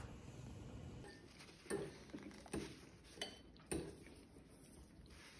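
Utensils knocking against a ceramic bowl, four light clinks at uneven intervals of about a second.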